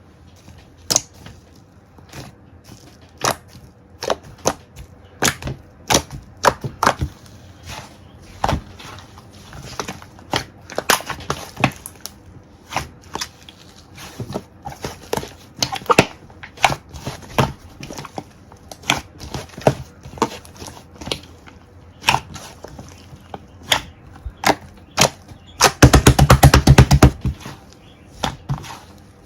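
Slime being squeezed and poked by hand, giving scattered sticky clicks and pops, with a quick run of crackling pops near the end.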